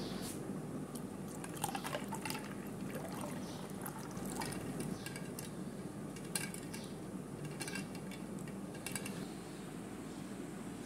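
A spoon stirring rose sharbat with ice cubes in a bowl: liquid swishing, with scattered sharp clinks of ice and spoon, over a steady low hum.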